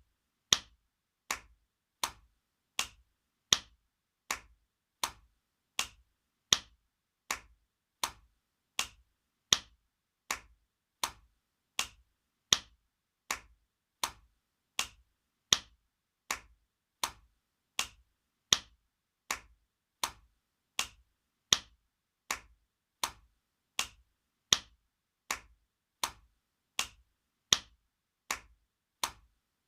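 Spanking sound effect: sharp slaps, repeated at a steady pace of about four every three seconds, every fourth slap a little louder.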